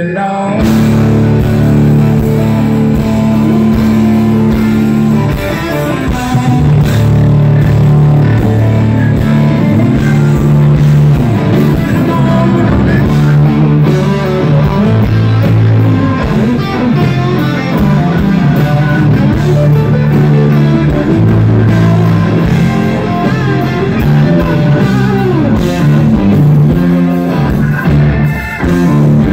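Southern rock band playing live and loud: electric guitars over held bass guitar notes and a drum kit in an instrumental stretch with no singing.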